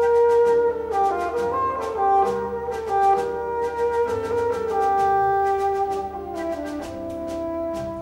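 Background music: brass instruments playing a sustained, shifting melody over a steady beat.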